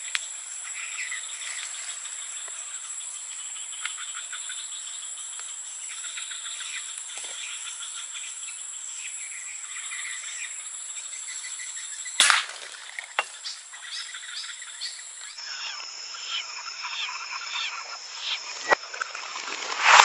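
Outdoor ambience of small birds chirping and insects calling over a steady hiss, with one sharp, loud crack about twelve seconds in.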